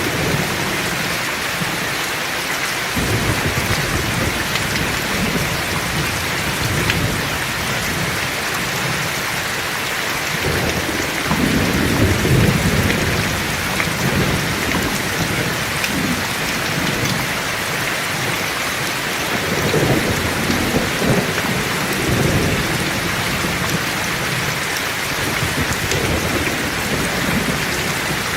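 Heavy rain falling steadily, with low rolling thunder rumbling in several long waves, loudest about 12 seconds in and again around 20 seconds.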